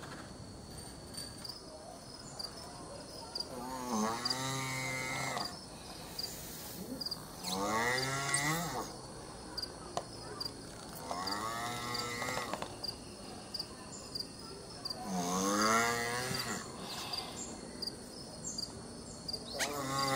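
Male tortoise mating calls: five long, wavering calls, one about every four seconds, as he mounts the female. Crickets tick steadily in the background.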